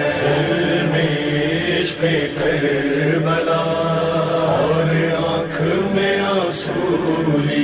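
A noha, a Shia lament for Karbala, chanted by a voice over a steady low drone.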